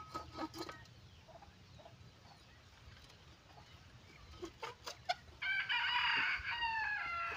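A rooster crowing once, a long call of about two seconds near the end. Before it, a few light knocks.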